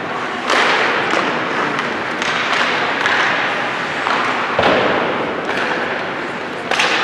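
Game noise from play: a string of sudden thuds and knocks, about half a dozen, over a steady noisy din.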